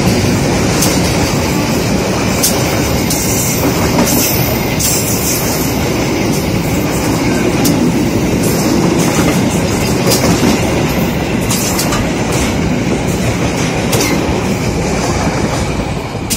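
Majapahit passenger train's coaches passing close at speed: a loud, steady rumble of steel wheels on rail with irregular clacks over the rail joints, easing off near the end as the last coach goes by.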